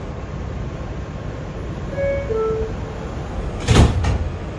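New York City subway car stopped in a station with a steady low rumble; about two seconds in the two-note falling door chime sounds, and just before four seconds in the sliding doors close with a loud thump.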